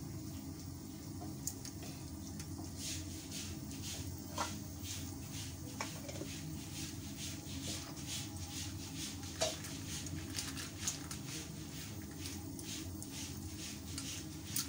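Whole cloves and green cardamom pods sizzling in hot ghee in a steel pot, with small irregular crackles that come thicker after the first couple of seconds, over a steady low hum.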